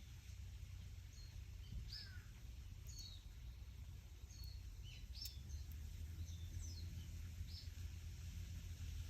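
Small birds calling in short, high chirps and quick sliding notes, scattered through the first seven or so seconds, over a low steady wind rumble.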